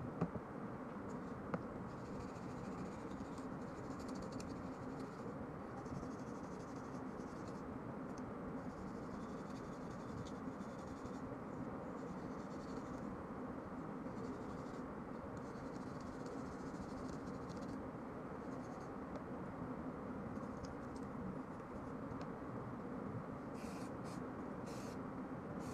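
Scratchy rubbing and scrubbing of a bristle cleaning brush and fingers on the metal parts of a stripped 30 bore TT pistol, with a couple of light metal clicks in the first two seconds.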